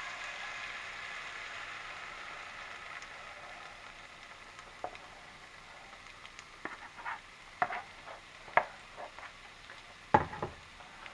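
Pancake batter hitting hot melted butter in a nonstick skillet, sizzling strongly at first and slowly settling to a softer sizzle. In the second half, a scatter of sharp taps and clicks from a spoon scraping the plastic mixing bowl, with a heavier knock near the end.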